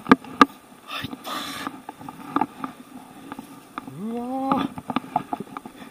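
Hooked carp splashing and thrashing at the surface against the bank, with scattered knocks and small splashes. About four seconds in, a short rising grunt of effort.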